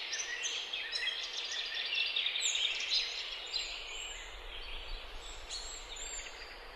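Several small birds chirping and calling in quick, high arching notes over a faint steady outdoor hiss.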